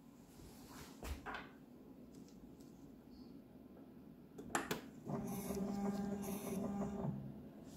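BioChem SA semi-automatic biochemistry analyzer taking up a sample: a few light clicks as the glass tube is handled and the aspirate plate is pressed, then the analyzer's aspiration pump runs with a steady hum for about two seconds, drawing the liquid up through the sipper probe, and stops.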